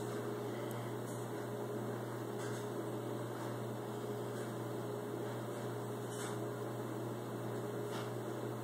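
Steady background hum, like a fan or an appliance running, with a faint steady tone over it; a few faint soft ticks come and go.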